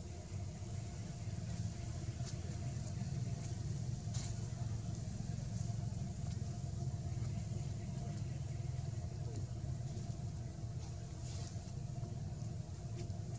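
A steady low engine hum, like a motor idling, with faint scattered high-pitched ticks.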